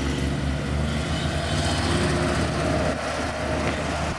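A car engine running at a steady low speed, its even, low note holding with only slight shifts in pitch.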